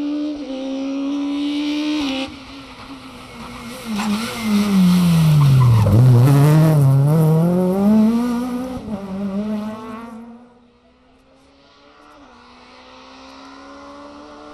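Rally car engine pulling hard up through the gears, then loud as it passes, the revs dropping sharply as it lifts into the bend and climbing again as it slides through, with tyre noise. After a sudden drop, a second rally car, a Ford Fiesta R2, is heard approaching more quietly, its engine note rising.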